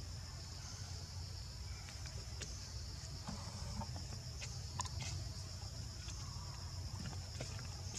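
Steady high-pitched insect chorus over a low rumble, with scattered short chirps and clicks.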